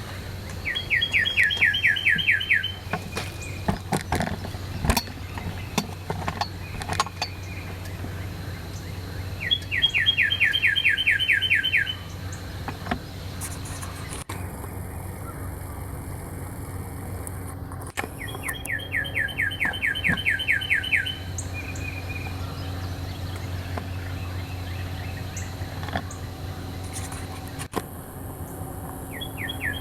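A songbird singing: a rapid run of about a dozen clear down-slurred whistles lasting about two seconds, repeated about every nine seconds, with scattered clicks in the first several seconds.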